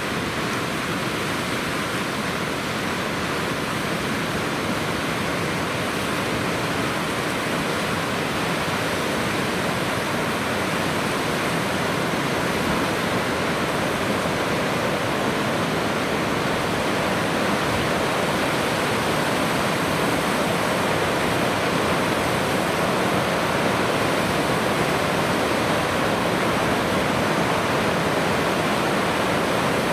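Steady rushing of fast-flowing water, a constant even roar that grows gradually a little louder.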